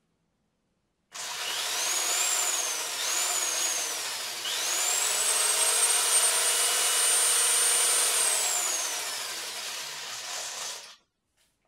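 Cordless drill driving the rotor of a homemade magnetic generator. The motor whine rises twice in short spin-ups, then climbs to a steady high speed for a few seconds and winds down, stopping about a second before the end.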